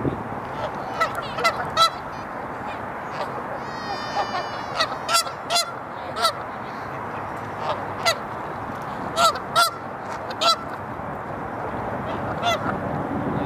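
Canada geese honking: short, sharp honks, often two or three close together, repeated at uneven intervals over a steady background hiss.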